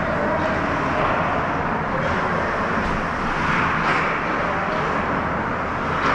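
Steady noise of an ice hockey rink during a game, heard at rink level: a continuous din with a few faint scrapes or knocks.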